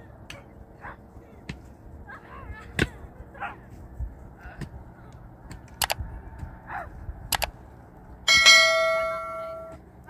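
Scattered knocks and taps, then near the end a single loud strike on metal that rings with several clear tones and dies away over about a second and a half.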